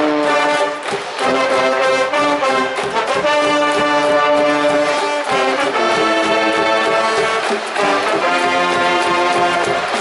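Cheering brass band in the stands at a high-school baseball game, with trumpets and trombones playing a cheer tune in long held notes.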